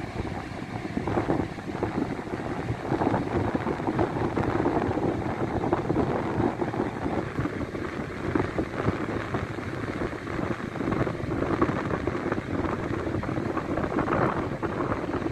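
Wind buffeting the phone's microphone over the rush of surf, a steady noise that swells and eases.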